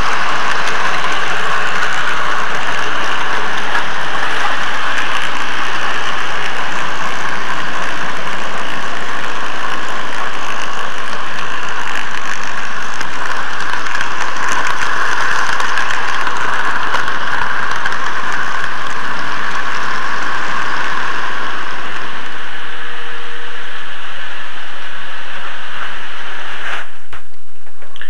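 An N gauge model train running on its track, heard very close from a camera riding on it: a loud, steady running noise of the locomotive's motor and wheels on the rails. It stops with a sharp click near the end.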